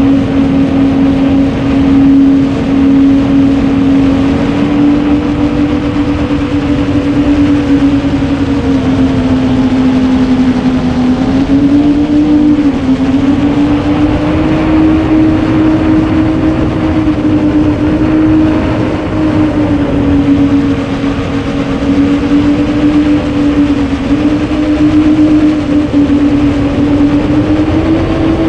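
Motors and propellers of a 9-inch FPV quadcopter, heard from a GoPro on board: a steady, loud buzzing drone whose pitch drifts up and down a little with throttle and sits slightly higher near the end, with wind rushing past the camera.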